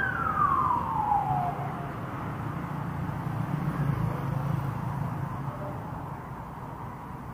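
A single loud whistle that jumps sharply up in pitch and then glides slowly down, followed by a low steady rumble.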